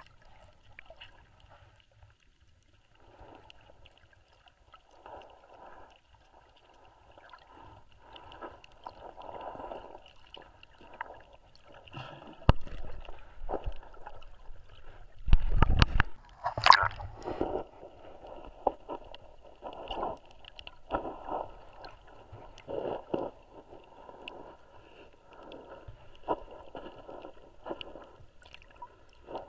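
Muffled underwater water noise picked up by a submerged camera: irregular swishing pulses of moving water, with a couple of louder low thuds around the middle.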